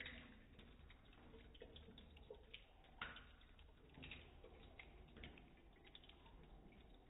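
Near silence with faint, irregular ticks and drips of water, one a little louder about three seconds in: a Bengal cat lapping at a thin stream running from a kitchen tap into a stainless steel sink.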